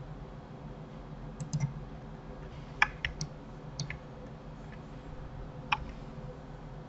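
Scattered clicks of a computer keyboard and mouse as the 3D software is operated: a quick cluster of three about one and a half seconds in, then about half a dozen single clicks. A steady low hum runs underneath.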